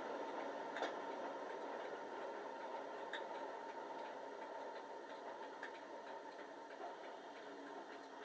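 Bachmann Class 37 model locomotive's Digitrains sound file on an ESU LokSound 5 decoder, playing the diesel engine idling through a small EM1 speaker, with a few faint clicks. It grows gradually quieter.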